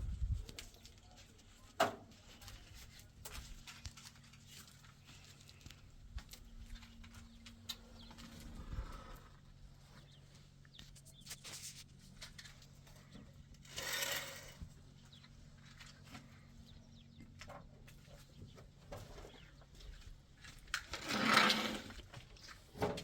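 Quiet rural surroundings with scattered small knocks and two short animal calls, one about midway and a louder one near the end.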